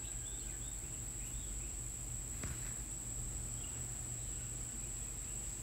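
Faint scratching of a pen pressed along lines in a sheet of craft foam, over a steady high-pitched whine and a low hum.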